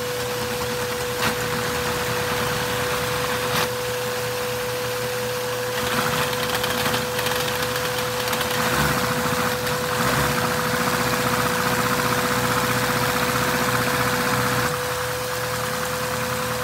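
Lego inline-four vacuum engine running on a vacuum cleaner's suction, with the vacuum's steady whine underneath and the clatter of the Lego engine and transmission. There are two sharp clicks in the first few seconds, and it runs louder and harder from about six seconds in until near the end.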